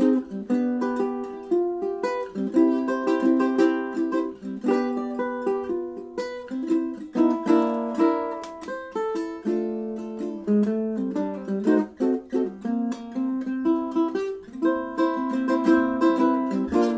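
Moore Bettah ukulele played solo: a steady run of quick plucked notes carrying a melody over chords.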